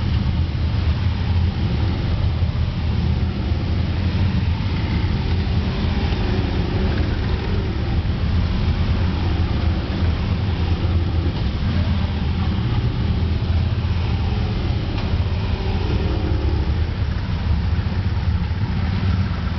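Steady low rumble of a slow procession of police motorcycles and police cars passing, their engines running at low speed.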